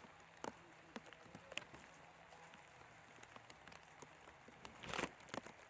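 Light rain falling: a faint steady hiss with scattered sharp drop ticks, and a louder rush of noise about five seconds in.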